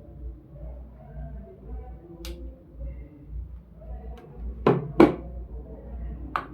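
Electric kettle heating water towards the boil, a steady low rumble, with a few sharp knocks; the loudest two come close together about five seconds in.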